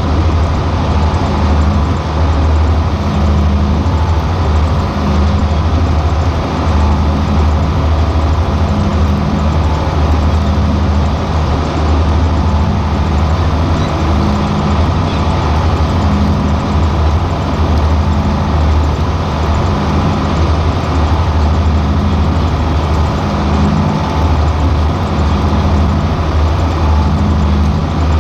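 John Deere 4440 tractor's six-cylinder turbo diesel engine running steadily under load while pulling a planter, with a faint low pulse repeating about once a second.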